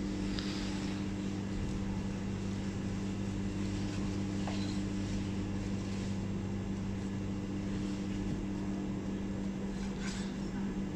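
Steady low machine hum of kitchen equipment, with a few faint knife strokes as a half-frozen tuna loin is sliced on a cutting board.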